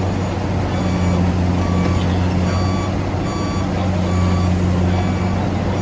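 Reversing alarm beeping about once a second over the steady low drone of a heavy diesel engine running.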